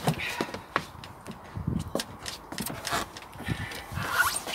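Irregular clicks and knocks as someone moves about a sailing yacht's cockpit, with wind gusting on the microphone.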